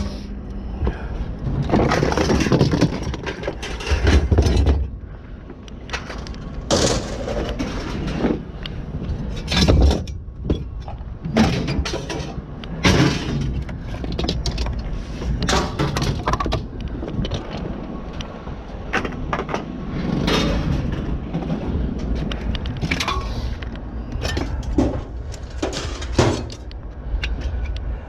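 Scrap being thrown and dropped onto a pile: a string of irregular crashes, clanks and rattles, one every second or two, with some breaking glass.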